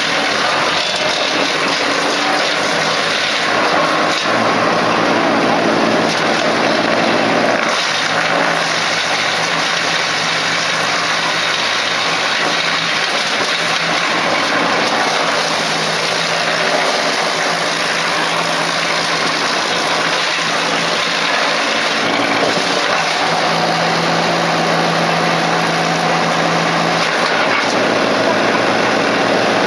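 Old-model Euroking PTO wood chipper running, driven off a tractor's power take-off: a loud, steady machine noise with the low engine note shifting a few times.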